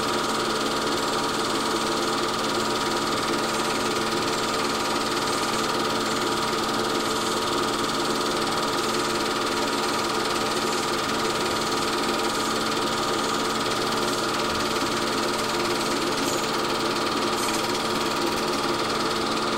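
Film projector running with a steady mechanical whir and clatter that holds the same pitch throughout.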